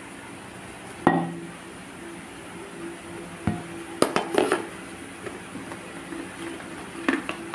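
Metal spoon clinking and knocking against kitchen dishes a few times, about a second in, around three to four and a half seconds, and near the end, while cornstarch is spooned out for the mixture.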